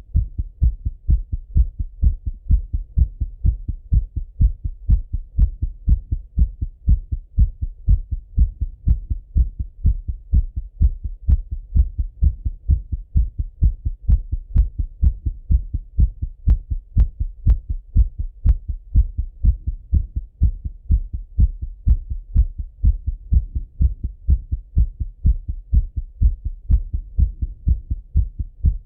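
A man's heart thumping in a steady, even rhythm, heard through a Littmann stethoscope pressed to the chest. The rate is raised after a run.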